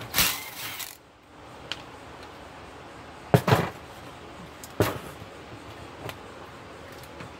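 A sheet-metal equipment chassis and a cordless drill-driver being handled on a wooden bench: a brief rushing scrape at the start, then hollow metal clunks and knocks, the loudest a quick double clunk about three seconds in and single knocks a second or so apart after it.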